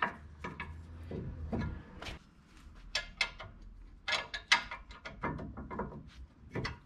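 Scattered metallic clicks and clinks in several short clusters, as a socket is fitted on and off a truck's front brake caliper bracket bolt by hand. The 13/16 socket is almost, but not quite, the size of the 21 mm bolt head.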